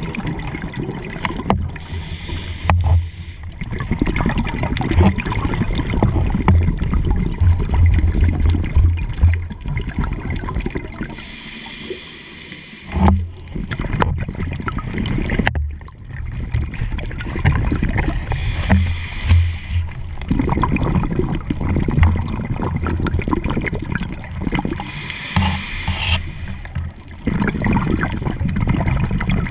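Scuba diver's own regulator breathing heard underwater: long rumbling, gurgling spells of exhaled bubbles alternating with the hiss of an inhalation, twice.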